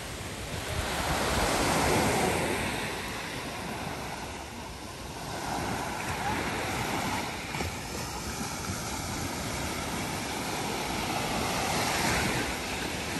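Sea surf breaking on the beach, the wash swelling and falling about every five seconds, with wind buffeting the microphone.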